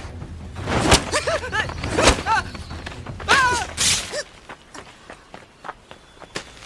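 Fight-scene sound effects: two sharp thuds of blows about a second apart with swishes, mixed with short cries and grunts, then quieter scuffling with a few small knocks.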